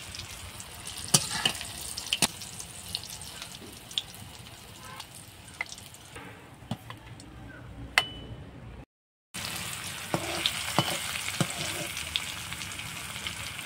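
Mustard oil sizzling as squares of steamed egg-and-cauliflower mixture shallow-fry in an aluminium kadai, with sharp clicks of a metal spatula against the pan and plate. The sizzle breaks off for an instant about nine seconds in and comes back louder, with fresh pieces in the oil.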